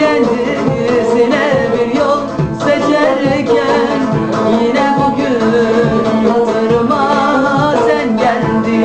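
A woman singing a Turkish folk-style song to the strummed accompaniment of a twelve-string cümbüş, with a steady plucked rhythm under the voice.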